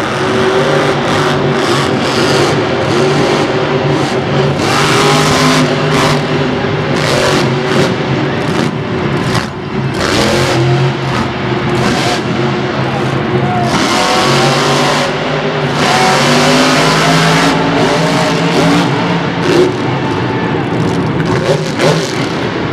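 Over Bored monster truck's supercharged V8 engine running loud, revving up and down as the truck drives.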